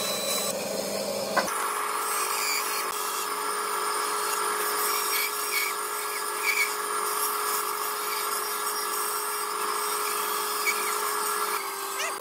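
Band saw running steadily, its blade cutting through a pallet-wood board along a curved line. The sound shifts abruptly about a second and a half in and eases off near the end.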